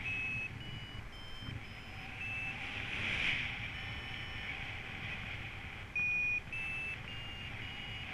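Paragliding variometer giving short beeps that climb a little in pitch from one to the next, in two runs with a pause in between, the instrument's signal that the glider is climbing in lift. Wind noise from the airflow over the microphone runs under it.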